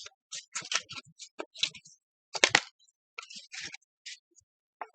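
Tarot cards being handled: a run of irregular crisp flicks and rustles of the deck, loudest about two and a half seconds in.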